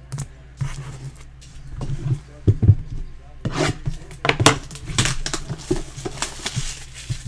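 Cardboard trading card box knocking and sliding as it is taken off a stack of boxes, then its plastic shrink wrap crinkling and tearing as it is ripped open in the second half.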